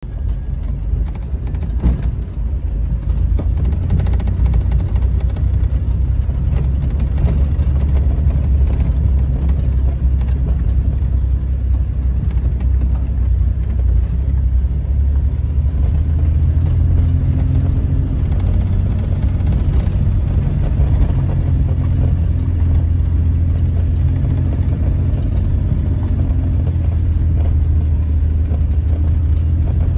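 Engine and road noise heard inside a moving vehicle: a steady low rumble, with a few knocks in the first few seconds as it rides over a gravel road.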